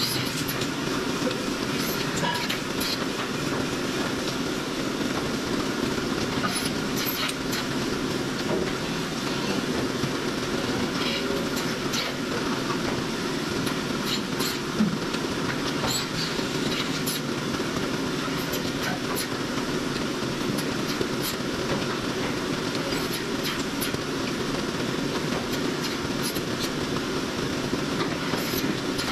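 Dairy milking shed machinery running steadily during milking: a constant rumbling mechanical clatter with scattered sharp clicks and clanks, and one louder knock about halfway through.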